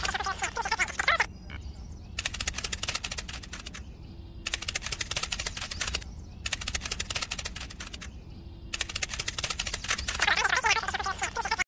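Rapid ticking trills in repeated bursts of two to three seconds with short gaps between them, and bird chirping at the start and again near the end.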